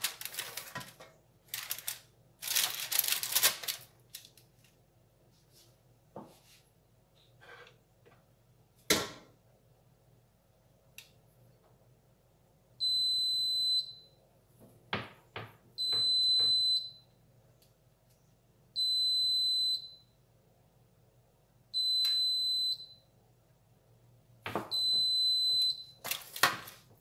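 An electronic alarm beeping in the second half: five steady, high beeps about a second long, spaced about three seconds apart. Before the beeps there is rustling, and there are scattered knocks and clicks from kitchen work.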